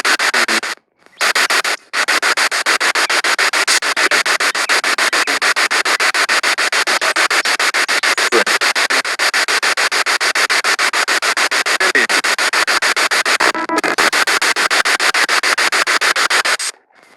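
Spirit box radio sweeping rapidly through stations: loud, steady static chopped into fast pulses, with brief silent dropouts about a second in and again near the end.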